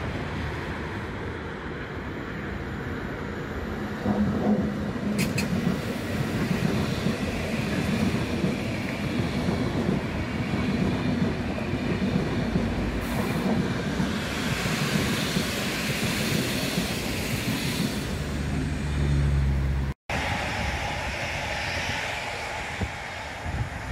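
Electric-locomotive-hauled InterCity passenger train passing at speed, its coaches' wheels clattering over the rails. Near the end the sound cuts abruptly to another electric multiple unit running past.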